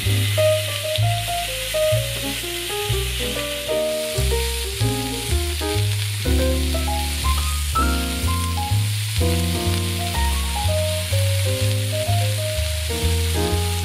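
Food sizzling as it fries in a pan, a steady hiss, with background music playing over it.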